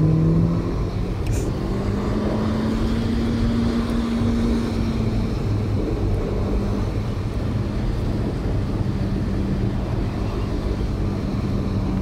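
Car driving, heard from inside the cabin: a steady engine hum over tyre and road rumble. The engine note rises about a second in, holds, and settles a little lower about five seconds in.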